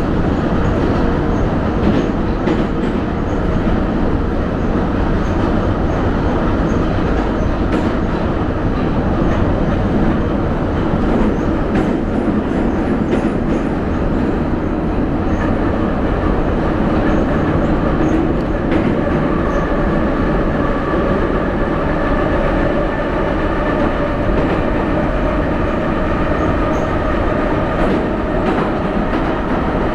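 Subway train running through a tunnel, heard from inside the passenger car: a loud, steady rumble and rush with faint clicks from the wheels. About halfway through, a steady higher hum joins in.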